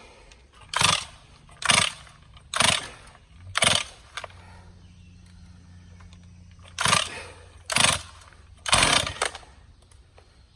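Stihl 460 chainsaw being pull-started cold: seven quick rips of the recoil starter cord turning the engine over, four about a second apart, then a pause and three more, without the saw catching.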